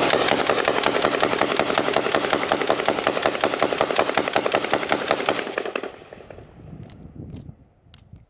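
A suppressed 9mm firearm with a Rugged Obsidian 9 suppressor firing one long fully automatic string, shots in rapid, even succession for about five and a half seconds, then dying away to a few faint clicks.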